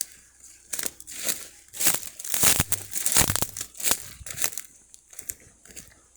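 Irregular crinkling and rustling, a quick run of short crackly noises that is busiest and loudest around the middle.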